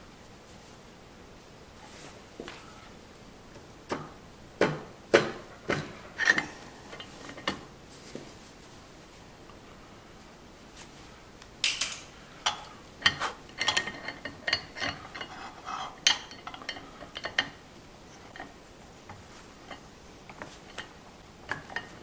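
Scattered metallic clicks and clinks from a small rack-and-pinion arbor press and a brass garden hose coupler as a 3D-printed grip is pressed onto it. A busier run of clinks comes about halfway through as the press's round steel anvil plate is turned by hand.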